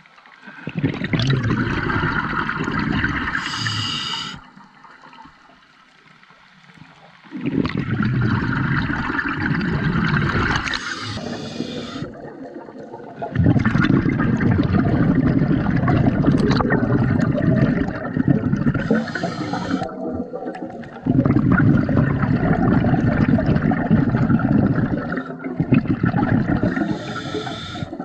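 Scuba diver breathing through a regulator underwater: long gurgling bursts of exhaled bubbles, about four breaths, each with a short hiss of inhalation between them.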